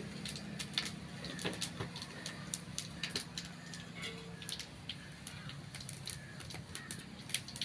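Irregular crackling and popping, many sharp clicks a second, from a wood fire burning under an aluminium pot where fennel seeds and cinnamon fry in hot oil.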